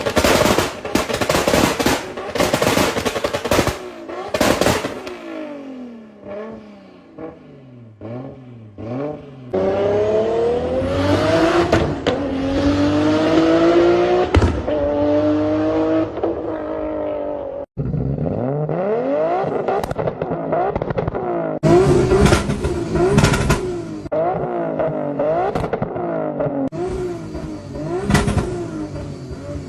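Modified Nissan Skyline GT-R R34's turbocharged straight-six with a race exhaust, revved and accelerating hard. The engine note climbs and drops back several times at quick gear shifts. A rapid string of loud exhaust bangs and crackles comes at the start, and more bangs follow later on.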